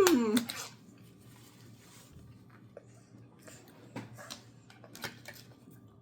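A loud, drawn-out 'mmm' that glides up then down in pitch at the start, then faint scattered clicks and smacks of someone eating.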